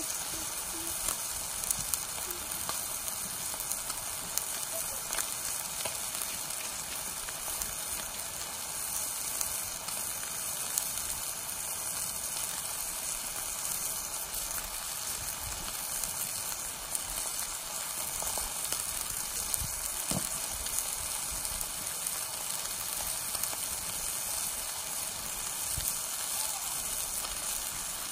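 A thick piece of meat sizzling in a cast iron skillet over a portable gas camp stove: a steady frying hiss with scattered small pops and crackles of spitting fat.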